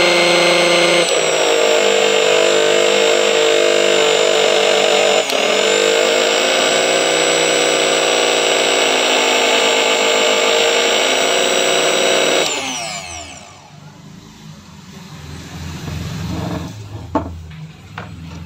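Bajaj mixer grinder's universal motor running at full speed with a steady high whine, then switched off about twelve seconds in and spinning down. It runs with only a light noise now that its worn armature shaft has been fitted with a second bush. A single click comes near the end.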